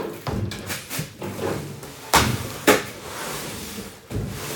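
Knocks and thumps of a large plastic-wrapped electric fireplace insert being lifted and set upright on a wooden floor, with rustling between them. There are two sharp knocks about two seconds in, half a second apart, and a dull thump near the end.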